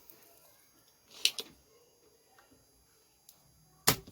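A few sharp clicks and taps from repair tools being handled on the workbench: a quick pair about a second in and a louder single click near the end, with quiet room tone between.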